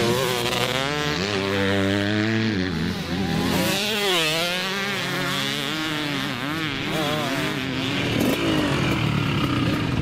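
Two-stroke motocross bike engines revving on the track, the pitch rising and falling again and again as the throttle is opened and shut.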